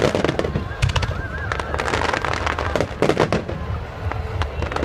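Fireworks display: rapid crackling pops from many bursting stars, with a few louder bangs near the start, about a second in, and around three seconds in.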